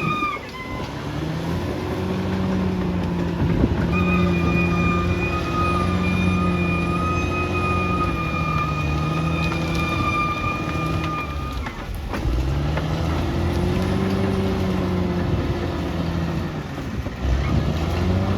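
Caterpillar D6R XL bulldozer's diesel engine working under load, its pitch rising and falling every few seconds as the load changes. A steady high whine runs over the engine from about four seconds in until it drops away with a short dip in the engine near twelve seconds.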